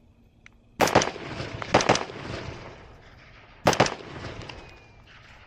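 Rifle firing six shots as three fast double-taps, the shots in each pair well under a quarter second apart, with each pair trailing off in a rolling echo.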